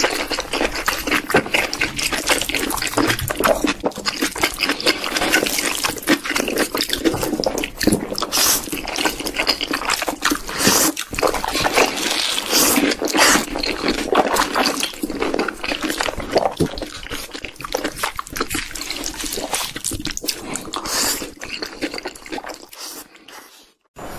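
Close-miked eating sounds: wet chewing, lip smacking and slurping of noodles and a soft cream-filled sweet, dense and continuous, fading out just before the end.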